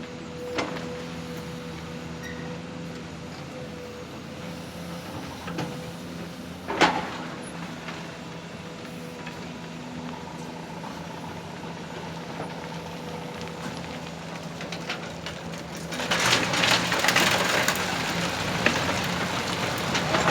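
Construction machinery running with a steady hum, a sharp knock about seven seconds in, and a louder, rough rattling noise from about sixteen seconds in.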